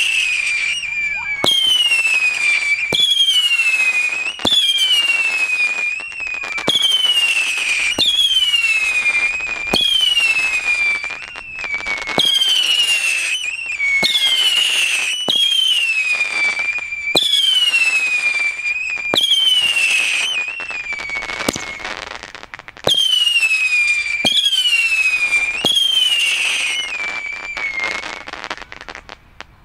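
Whistling fireworks going off one after another, about one every second and a half. Each begins with a sharp crack and a shrill whistle that falls in pitch, and the run stops shortly before the end.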